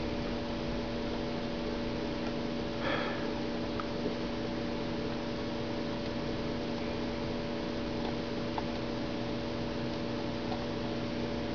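Steady electrical hum of several low tones over background hiss. A short sniff comes about three seconds in, and a few faint clicks fall later.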